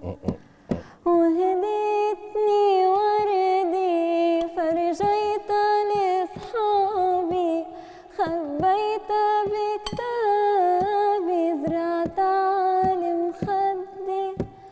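A woman singing unaccompanied, holding long notes with wavering pitch.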